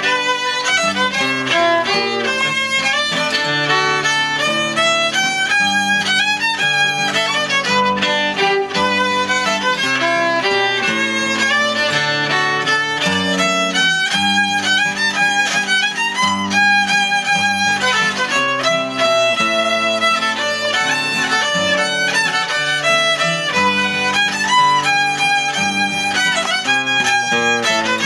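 Cape Breton fiddle tune played on the fiddle, with acoustic guitar chording underneath; the fiddle carries a steady run of quick notes.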